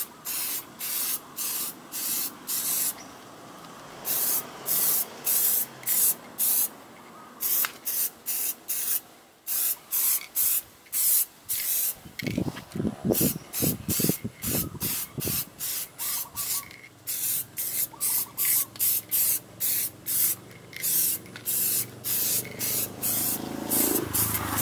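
2K clear-coat aerosol spray can hissing in many short bursts, about two to three a second, with a few brief pauses, as a thick final coat goes onto a headlight lens.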